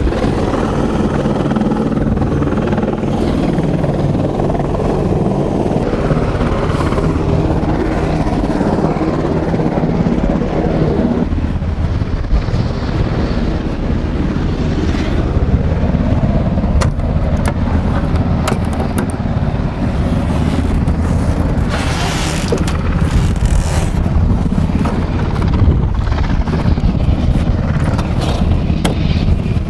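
Steady, loud engine rumble, changing abruptly about 6 and 11 seconds in, with scattered clicks.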